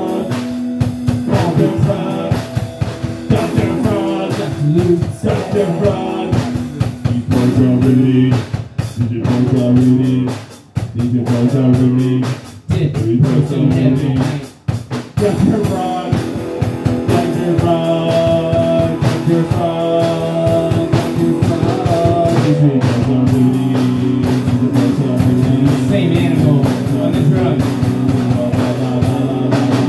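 A small band playing live: guitar over a drum kit keeping a steady beat, with two brief drops in the playing about ten and fourteen seconds in.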